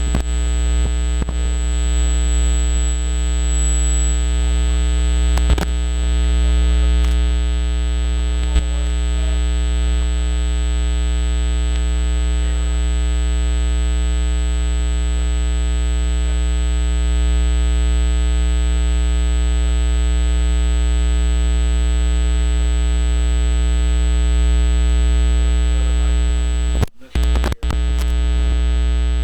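Loud, steady electrical mains hum and buzz: a deep drone with a stack of higher buzzing overtones and hiss, such as a ground loop or faulty audio chain gives. It cuts out briefly near the end.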